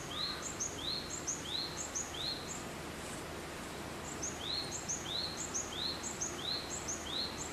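A small songbird repeating a two-note phrase, a short high note followed by a lower one, about one and a half times a second. It sings in two runs, with a pause a little over two seconds in. A steady low background rumble runs underneath.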